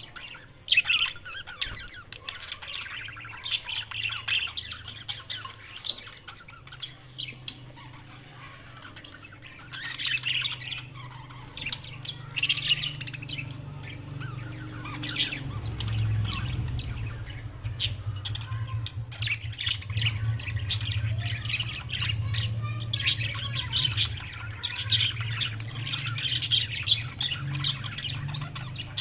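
Budgerigars chirping, warbling and squawking in a continuous busy chatter. A steady low hum runs underneath and grows louder about halfway through.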